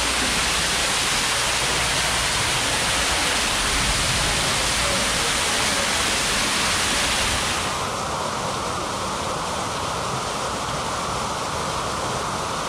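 Artificial waterfalls pouring into a hot-spring pool: a steady, loud rush of splashing water. About seven and a half seconds in it turns duller and a little quieter.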